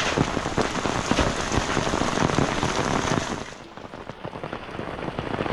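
Heavy rain falling steadily, a dense hiss of many close drop hits; it eases for about a second a little past the middle, then picks back up.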